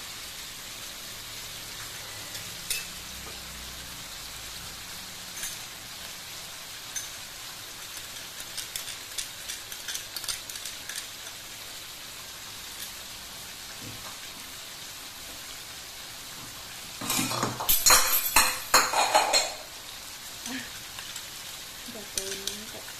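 Vegetables sizzling in a wok, with a metal ladle clinking and scraping against the pan as they are stirred. About seventeen seconds in comes a couple of seconds of loud, rapid clattering of the ladle against the wok.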